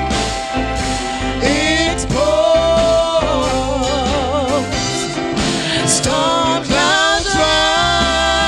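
Gospel song: a singer holds long notes with a wide vibrato and slides between them, over a steady backing.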